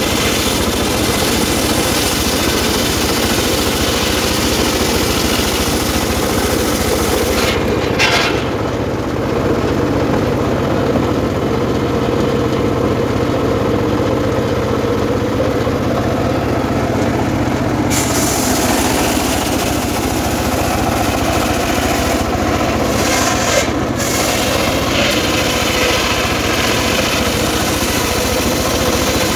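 Homemade circular sawmill running steadily as a log is fed through the blade. The high hiss drops away for about ten seconds from about eight seconds in, then returns.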